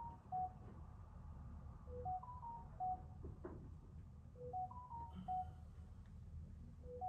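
A simple electronic tune of clean beeping tones, five notes stepping up and then back down, looped about every two and a half seconds over a steady low rumble.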